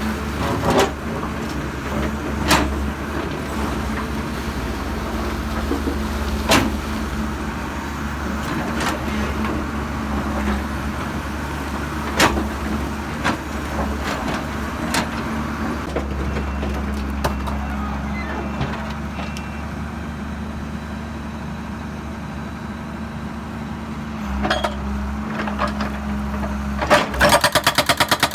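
Heavy diesel engine running steadily, with sharp knocks and clanks every second or two. A fast, even pulsing clatter starts near the end.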